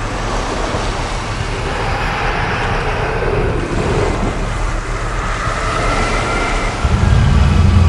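A loud, noisy rumble that slowly swells, with a deeper, heavier rumble cutting in near the end.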